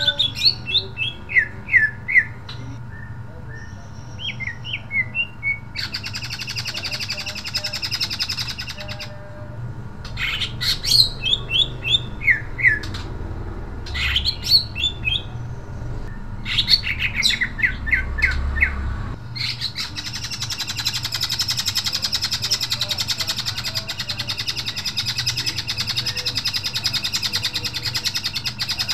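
Male greater green leafbird (cucak ijo) singing loudly. Quick runs of sharp, whistled notes that sweep up and down alternate with harsh, buzzing chatter, the longest run of chatter lasting from about two-thirds of the way through to the end.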